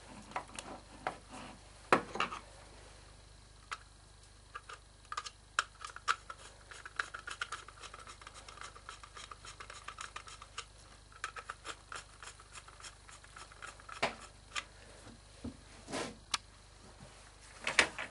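Handling noise of a Chevy HEI distributor and its parts on a workbench: scattered clicks and knocks of metal and plastic, with a stretch of light rubbing and scraping in the middle.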